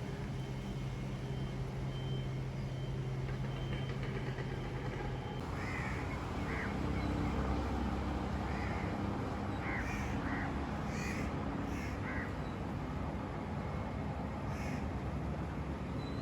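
Birds calling repeatedly, in short caws, over a steady low rumble; the calls begin about a third of the way in.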